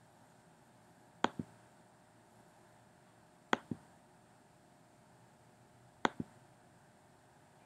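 Three clicks of a computer mouse button, about two and a half seconds apart. Each is a sharp press followed a moment later by a softer release.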